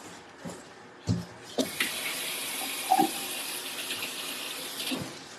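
Kitchen sink faucet running as a steady hiss for about three seconds, then shut off, with a few light knocks around it.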